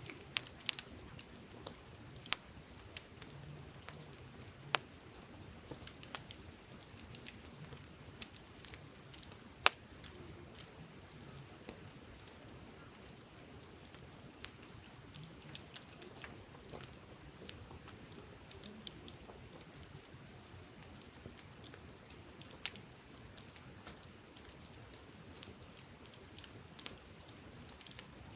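Wood campfire crackling, with scattered sharp pops at irregular intervals, the loudest about ten seconds in, over a faint steady hiss.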